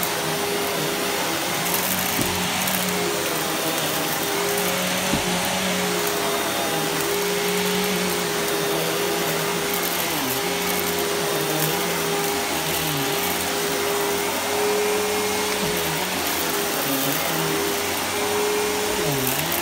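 Riccar bagged upright vacuum cleaner running while it is pushed over carpet: a steady motor hum over an even rush of air.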